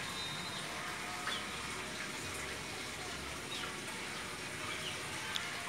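Steady running water, the flow of nutrient solution through the PVC pipes of a hydroponic system, with a few faint high chirps over it.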